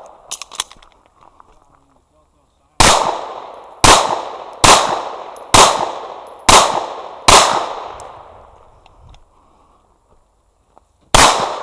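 Pistol shots: six fired about a second apart, each with a long echoing tail, then a pause and one more shot near the end.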